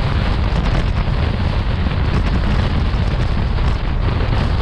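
Loud wind buffeting the microphone over the rumble of a passenger train running at speed, passing close alongside a line of goods wagons on the next track.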